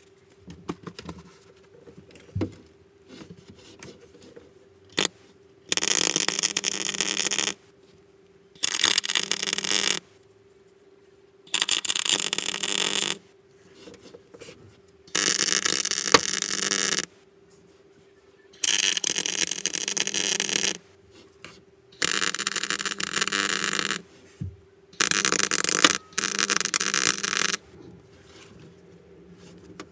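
MIG welder laying plug welds through pilot holes to fix a repair panel to a Classic Mini's cross member: seven separate bursts of arc crackle, each lasting about a second and a half to two seconds, with short pauses between them. A faint steady hum runs underneath.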